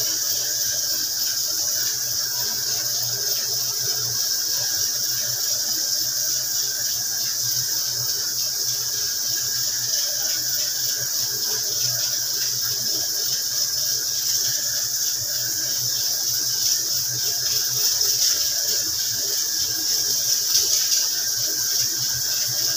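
Steady high-pitched hiss or whine with a low hum underneath, unchanging throughout with no distinct events.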